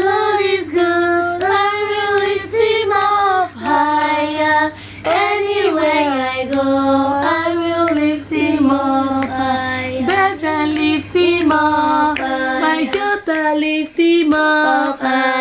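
A woman and young children singing a praise song together in long held notes, phrase after phrase.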